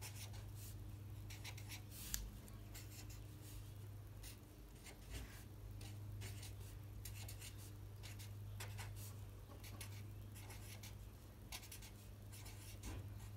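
Faint scratching of a felt-tip marker on paper as letters are written, in many short separate strokes, over a low steady hum.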